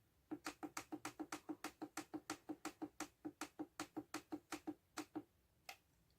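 A rapid, evenly spaced run of light clicks, about six a second for some five seconds, then one more click near the end.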